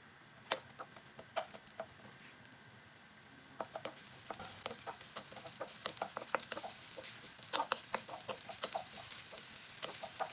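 Wooden spoon stirring sliced red onion in a non-stick wok, with a faint sizzle from oil that is not yet hot. A few sharp clicks come in the first two seconds. The stirring taps and the hiss start about four seconds in and build towards the end.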